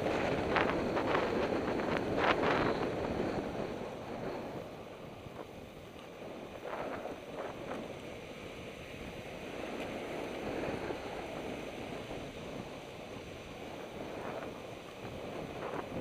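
Wind buffeting the microphone of a pole-mounted camera, with longboard wheels rolling on the asphalt of a downhill path. The noise is louder over the first few seconds, then eases off, with a few brief sharper sounds early on and again about seven seconds in.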